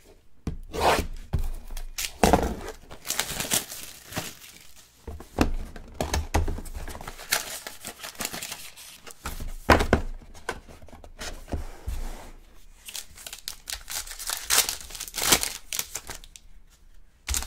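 Plastic wrapping being torn and crinkled as a box of 2020 Panini Elite Extra Edition baseball cards is unwrapped and its packs are pulled out and ripped open. Irregular rips and rustles throughout, with small knocks of packs and cards being handled.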